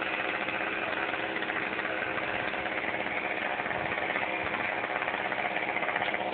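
An engine running steadily at idle, its hum unchanging.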